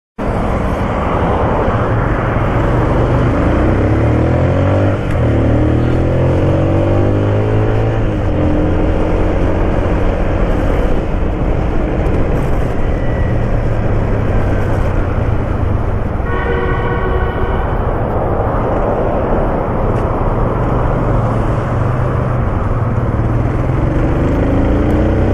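Steady road-traffic noise from engines heard on the move, with engine pitch rising and falling several times. A vehicle horn sounds once, briefly, about two-thirds of the way through.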